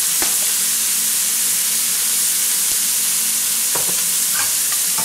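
Crushed pearl onions and garlic sizzling in hot oil in a stainless steel pan: a steady high hiss with a few faint clicks, the onions frying until they soften.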